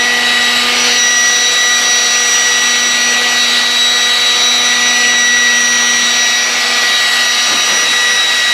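SeatZac self-inflating chair's built-in electric air compressor running steadily, blowing air into the nylon chair as it inflates: a steady high whine over a rush of air.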